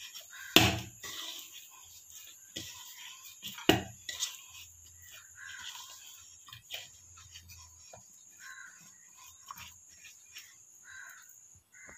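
A hand mixing and kneading soft flour dough in an aluminium bowl, with a few sharp knocks against the bowl: the loudest about half a second in, another near four seconds.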